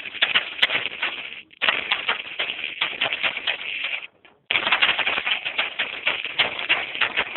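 Rapid, dense clattering clicks in runs of a second or more, breaking off briefly about one and a half seconds in and again just past four seconds.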